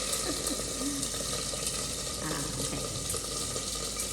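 Chicken chop frying in its own rendered fat in a skillet with no added oil, a steady hiss of sizzling as the skin browns.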